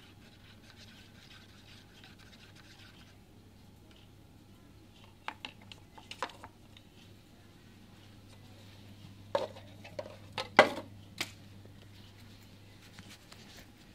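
A wooden stirrer scraping round inside a paper cup of coffee, then several sharp clicks and knocks, the loudest about ten and a half seconds in, over a low steady hum.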